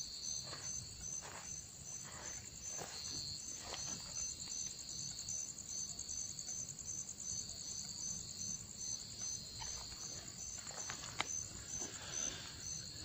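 A night-time insect chorus: a steady high chirring with a regular pulsed chirp about twice a second. Faint footsteps on dirt and gravel come in and out, mostly in the first few seconds and again near the end.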